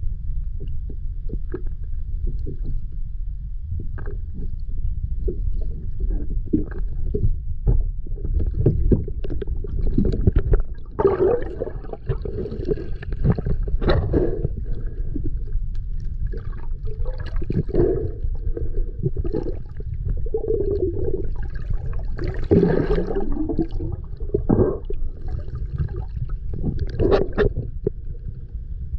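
Underwater sound picked up by a camera in open water: a steady low rumble with gurgling bursts every few seconds.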